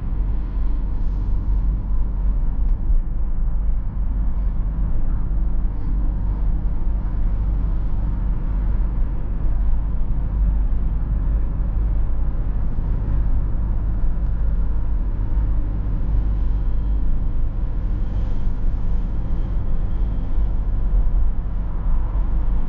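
Inside the cabin of a BMW E46 320d on the move: the car's four-cylinder diesel and its tyres on the road make a steady low rumble at a constant speed.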